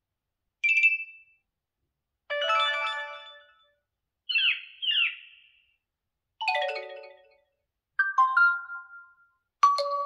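Xiaomi Mi 11 notification tones played one after another: six short, different chimes and chirps, one of them a quick double chirp. Each fades out within a second or so, with silence between them.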